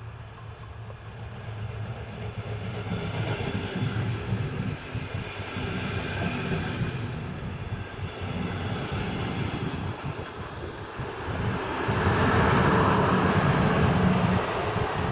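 Passenger train running along a station track, its wheels rumbling on the rails and growing louder, with the loudest stretch near the end.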